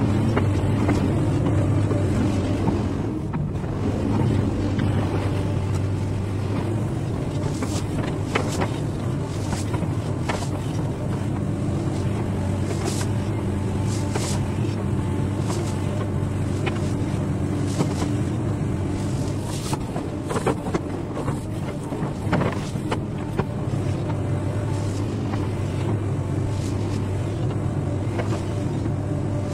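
XCMG crawler excavator's diesel engine running steadily under load while it digs and mixes heaps of crushed stone, with scattered clatter and knocks of gravel in the bucket.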